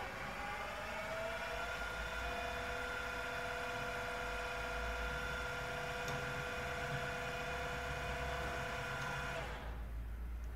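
Metex BF30 Vario drill-mill's brushless spindle drive and gear head whining, rising in pitch as the spindle speeds up, then holding steady. Near the end the whine drops away as the spindle stops in auto start/stop mode when the quill is let back up.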